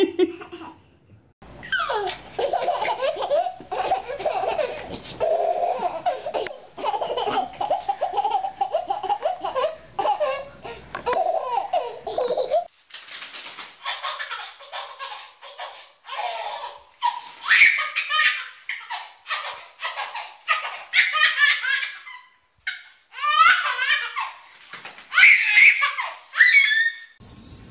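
A baby laughing hard in long, fast runs of belly laughs. About halfway through, a different recording begins with shorter, higher-pitched bursts of squealing and laughter mixed with clicks and clatter.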